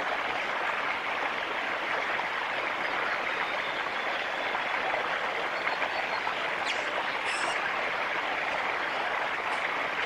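A steady rushing hiss with a few short, faint, high-pitched chirps about seven seconds in.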